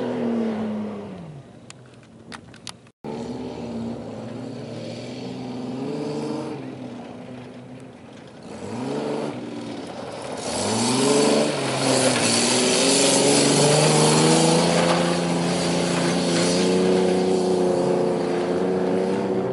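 Pickup truck engines revving hard on a dirt rallycross course, the pitch rising and falling repeatedly as they accelerate and back off through the corners, with a sudden cut about three seconds in. From about ten seconds in, spinning tyres spray dirt loudly while the engine holds high revs.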